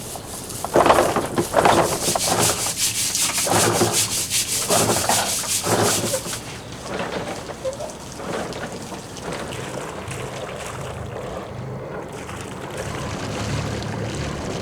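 A stiff brush scrubbing marine growth off the anchor in fast, even strokes, which stop about six seconds in. A low steady hum of the boat's engine runs underneath.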